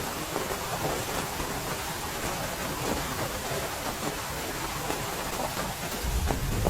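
Heavy rain falling steadily, with individual drops striking a surface. A louder low rumble comes in near the end.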